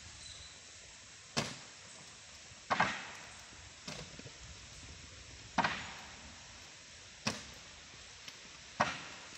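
Whole coconuts tossed one at a time onto a bamboo ox cart, each landing with a sharp thud against the wood. There are about six thuds, spaced a second or two apart.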